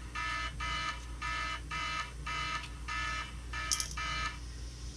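Tire-pressure alarm from the FOBO Bike 2 tire monitor beeping about twice a second, set off by the sensor having been unscrewed from the tire valve. The beeping stops near the end, just after a small click.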